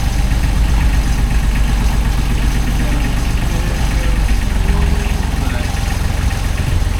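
Catalina 36 sailboat's inboard diesel engine running at a steady idle-like speed, a constant low hum.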